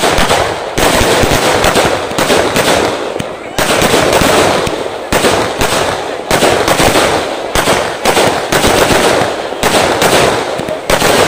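Multi-shot aerial firework cakes (sky shots) going off in a rapid, continuous barrage of launches and bangs, with dense crackling.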